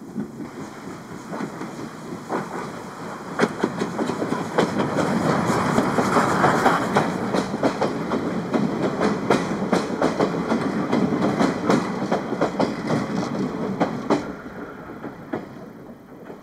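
C10 tank steam locomotive and its passenger coaches rolling past at close range, wheels clicking over the rail joints. It builds over the first few seconds and dies away after about fourteen seconds as the last coach goes by.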